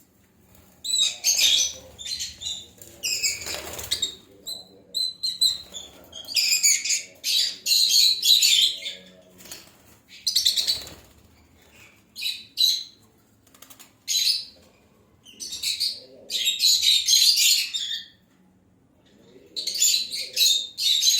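Small birds chirping in a string of short, high-pitched bursts with brief lulls between them.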